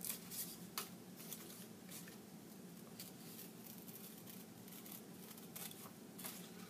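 Scissors cutting paper: short, irregular snips, the sharpest and closest together in the first second, then sparser, over a faint steady low hum.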